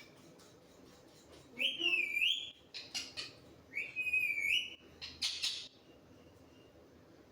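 Pet parrot whistling two short phrases about two seconds apart, each climbing and then dipping in pitch, with a short harsh noise after each.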